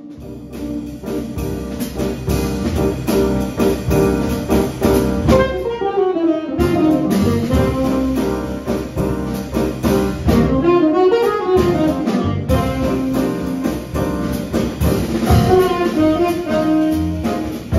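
Small jazz combo playing live: a saxophone carries a gliding melody over piano, upright bass, electric archtop guitar and a steady drum kit. The music fades in during the first second.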